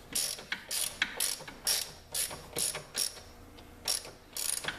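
Hand socket ratchet worked back and forth on a shock mount bolt, a short burst of pawl clicks on each swing, about two a second.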